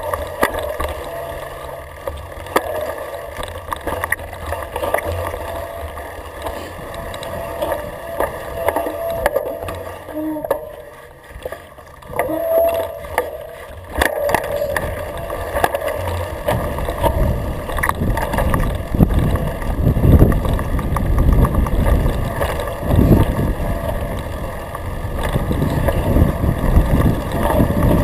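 Mountain bike rolling downhill over a rough grassy trail: tyre rumble, rattles and clicks from the bike, with wind buffeting the microphone, heavier from about halfway through.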